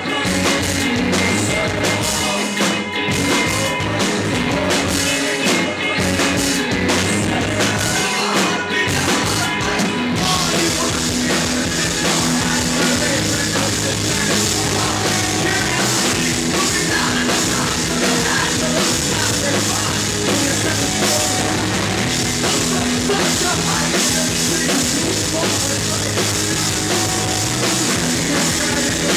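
Live rock band playing loudly with electric guitar, bass and drum kit. About ten seconds in, the cymbals come in and a bright, steady hiss fills the top of the sound.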